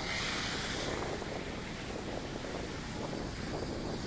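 Steady rainy city street ambience: a constant hiss of rain and wet traffic, with a brighter hiss for about the first second.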